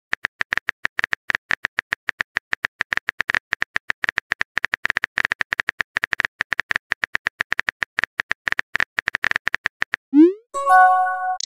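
Phone keyboard typing sound effect of a texting app: a rapid, even run of short tapping clicks, one per letter as a message is typed. About ten seconds in the taps stop, and a rising swoosh and a short chime follow as the message is sent.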